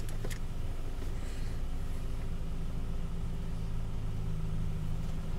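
Car engine idling, a steady low hum heard from inside the cabin, with two light clicks right at the start.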